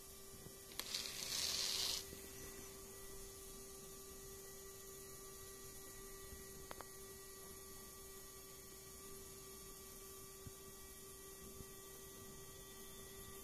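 Small electric gear motor of a homemade monorail engine running steadily as it drives along a toothed track: a faint, even hum. A short hissing rustle comes about a second in, and a single faint click about halfway through.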